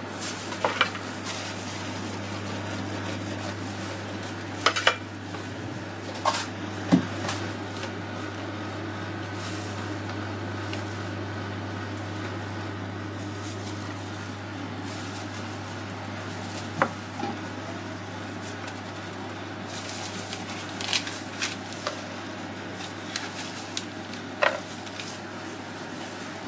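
Scattered clinks and knocks of a knife and an ice cream scoop against a stainless tray, a wooden board and a plastic tub, over a steady low hum.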